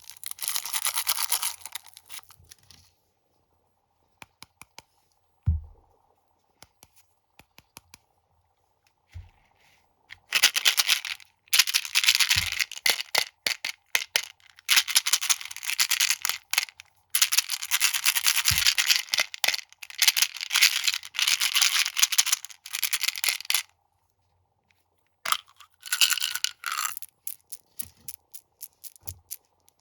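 Snack packaging crinkled and torn, with crunching of crunchy snacks: long stretches of dense crackling with sharp clicks between them and a few low thumps.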